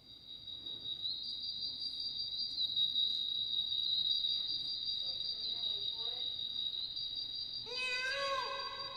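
Crickets chirring steadily in a high, shimmering chorus that fades in over the first second. Near the end a long pitched call with a rising start comes in over it.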